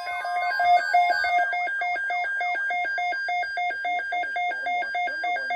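Weather alert radio alarm sounding for an incoming alert: rapid, evenly spaced electronic beeps, about three a second. Several alarms overlap at first, and a single one is left after about a second and a half.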